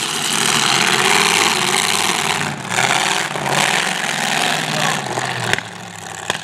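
Several demolition derby cars' engines running and revving together on a dirt arena, loud and dense, easing off after about five seconds. Two sharp knocks near the end.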